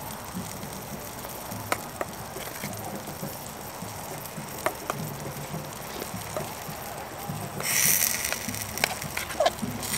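Potatoes being mashed and stirred in a small metal pot: soft scraping with a few sharp clicks of the utensil against the pot. Near the end, a brief hiss lasting about a second.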